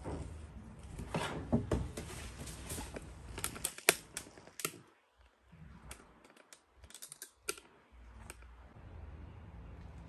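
Handling noise: light rustling and clusters of quick sharp clicks as the boots and their packaging are touched and moved, loudest around four seconds in and again about seven seconds in.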